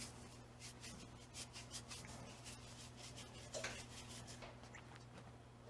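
Faint, scratchy rubbing of a utensil stirring cinnamon into granulated sugar, a grainy scraping with a few slightly stronger scrapes about halfway through.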